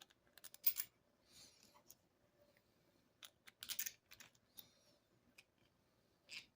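Sharp clicks and small knocks with brief light scrapes of hand work on small parts, in several quick clusters about a second in, near the middle and again near the end.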